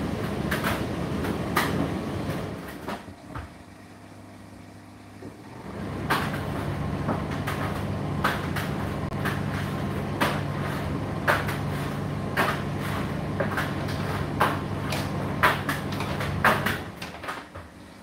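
Indesit IDC8T3 condenser tumble dryer running, its drum turning with the load tumbling and knocking inside. The drum stops about three seconds in, starts again a few seconds later, and stops again near the end, leaving only a quieter hum.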